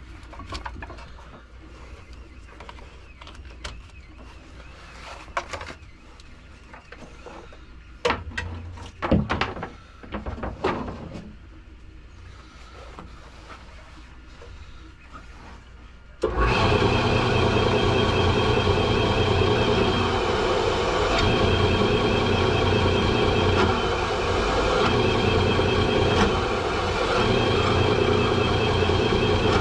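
A few knocks and clatters of handling, then about halfway through an electric shop machine's motor switches on and runs steadily with a loud hum and whine.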